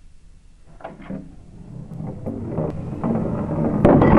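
A metal hoop and a solid disc rolling down a wooden board ramp. A couple of short knocks come about a second in as the wooden block holding them is pulled away, then a rumble builds steadily and is loudest near the end.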